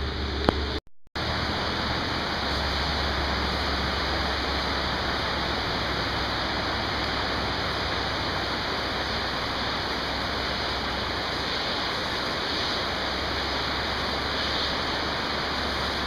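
Steady rain falling, an even hiss with no breaks except a brief dropout about a second in.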